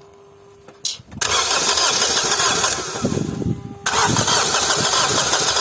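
Honda Accord 2.2 i-CTDi diesel engine being cranked and firing roughly, with a loud, broad hissing noise over uneven low pulses, starting about a second in; it drops off briefly near four seconds in and comes straight back. The engine is running badly after a turbo failure, with the turbo-to-intake pipe off.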